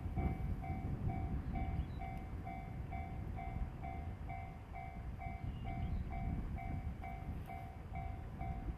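Railway level-crossing alarm ringing in a steady pulse of about two rings a second, over a low rumble. The alarm signals a train approaching.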